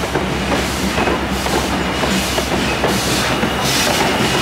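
Passenger coaches rolling past close by: a steady low rumble with their wheels clicking over the rail joints, and a faint thin high whine.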